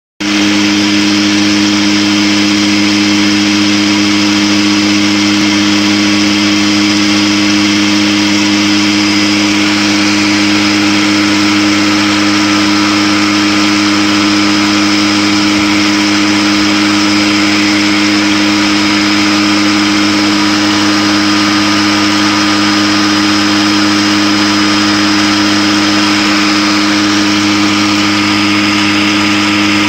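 Homemade centrifuge, a tuna can spun at about 6500 rpm inside a bucket, running at a steady speed. It makes a loud, constant motor hum and whine that neither rises nor falls.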